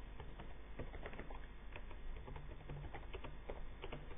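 Faint typing on a computer keyboard: irregular, quick key clicks.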